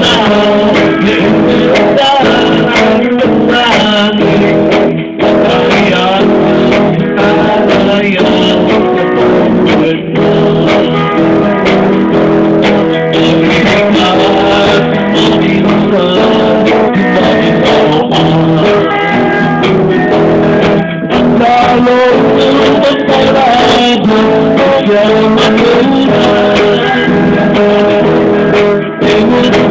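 A man singing live into a microphone, backed by strummed guitars from a band.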